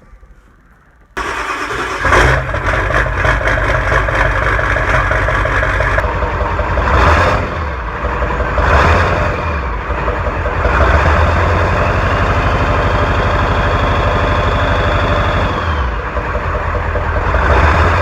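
Ford 7.3 L Power Stroke turbo-diesel V8 running through a new 3-inch downpipe. It comes in suddenly about a second in and is revved several times. A high whistle from the turbocharger builds and then falls away near the end.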